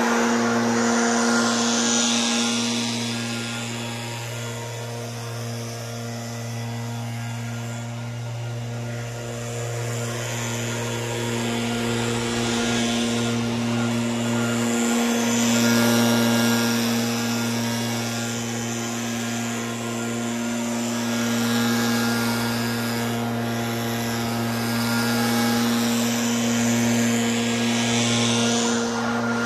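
Gas-powered leaf blower running at high throttle: a steady engine drone with the rush of air from the nozzle. It is louder at the start, again around the middle and near the end.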